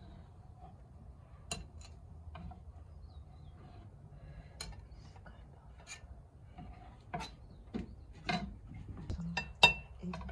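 Kitchen utensils and dishes handled: scattered light clicks, taps and rubbing, with a sharper ringing clink of a dish near the end.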